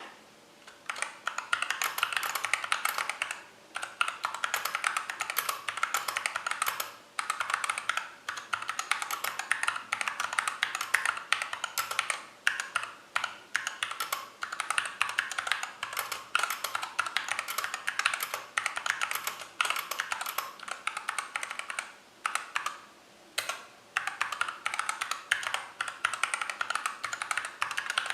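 Mechanical keyboard with Everglide Crystal Violet switches and Tai-Hao Cubic profile keycaps, typed on fast and steadily: a dense run of key clacks broken by a few brief pauses.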